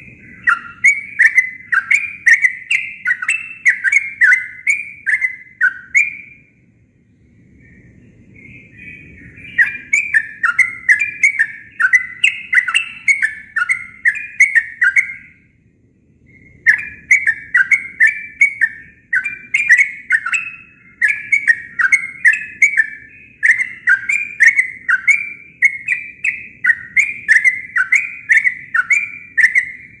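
Yellow-vented bulbul singing its own natural song, with no mimicry of other birds: long runs of quick notes that rise and fall in pitch, about three to four a second. Two short pauses split the song into three bouts, and the last runs on without a break to the end.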